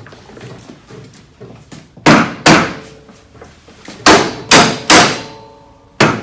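Six sharp knocks on metal parts of the machine being reassembled: a pair about two seconds in, three more around four to five seconds, and one near the end. A few leave a short metallic ring.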